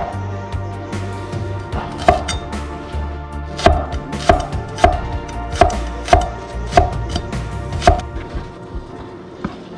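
A knife chopping food on a cutting board: about ten separate, unevenly spaced chops with a short ring, stopping a couple of seconds before the end.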